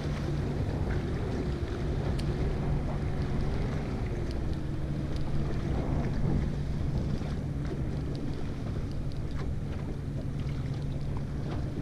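Steady low hum of a boat engine, with wind buffeting the microphone and water washing around the hull. A fainter engine tone wavers up and down in pitch above it.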